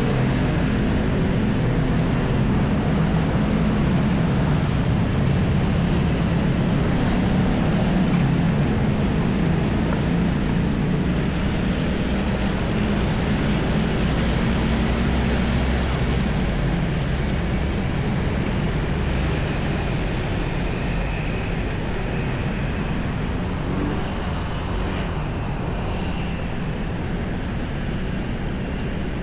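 City street traffic: a constant wash of vehicle noise, with a heavy engine running close by and humming low through the first half before it fades.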